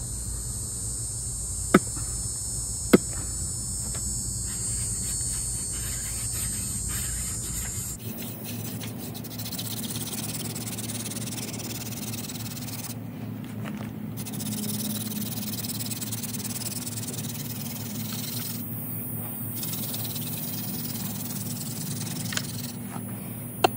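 Hand-drill friction fire: a yucca spindle spun back and forth between the palms in a pine fireboard, making a steady rubbing hiss as it grinds toward an ember. For the first several seconds a high steady insect drone and two sharp taps are the main sounds before the rubbing takes over.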